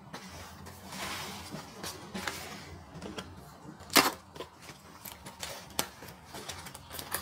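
A cardboard box being opened by hand: rustling and scraping of the cardboard with scattered small clicks, and one loud sharp snap about four seconds in.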